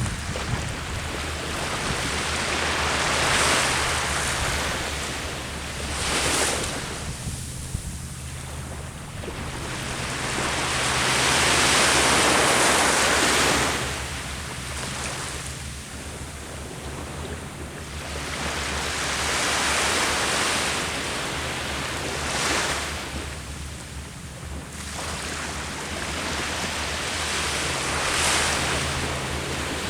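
Sea waves washing onto the shore, each surge swelling and falling away every few seconds, the longest and loudest about twelve seconds in, over a steady low hum.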